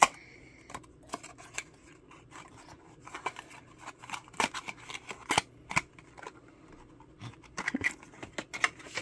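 Cardboard toy box and packaging being handled and opened: irregular sharp clicks, taps and light scrapes of cardboard and small plastic pieces, busiest near the end.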